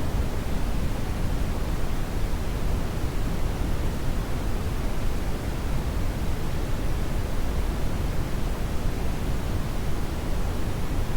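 Steady synthetic brown noise: an even, deep hiss with most of its energy in the low end, unchanging throughout.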